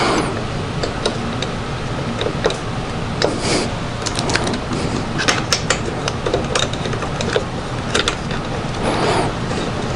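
Irregular light metallic clicks and rattles of small bolts and hand tools being handled while the carburetor and choke assembly are bolted back onto a small mower engine, with a few short rustles, over a steady background hum.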